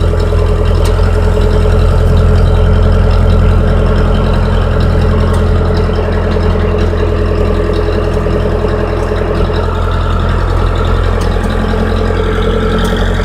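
Diesel engine of a high-hour Case 580E backhoe running steadily, heard from inside the cab.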